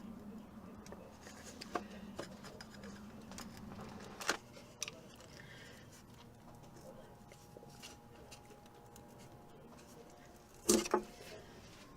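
Hand tools clicking and knocking on metal engine parts while the crankshaft oil seal is worked out with a homemade removal tool: a few scattered sharp clicks, with a louder double clatter near the end.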